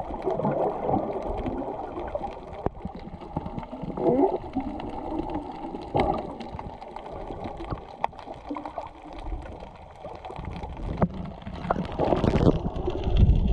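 Muffled underwater water noise heard through a GoPro's waterproof housing, with scattered sharp clicks. Near the end the noise swells into a louder rush of water.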